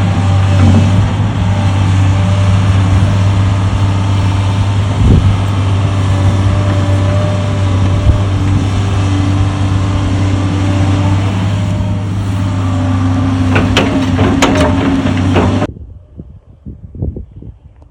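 Diesel engine of earth-moving equipment running steadily while backfilling a water-line trench, a loud low drone with a few knocks, cutting off abruptly near the end.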